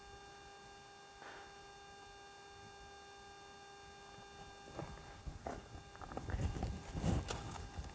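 A faint steady hum, then from about five seconds in a horse's hooves stepping and shuffling on the ground in irregular thuds that grow louder toward the end.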